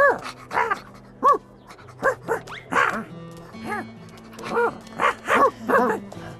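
Cartoon dog barking, about ten short barks in quick runs, over background music with steady held notes.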